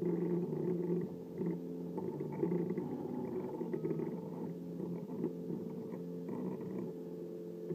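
Stepper motors of a Sumpod Basic 3D printer driving the print head while printing a cube, a buzzing whine that jumps in pitch every fraction of a second as the moves change.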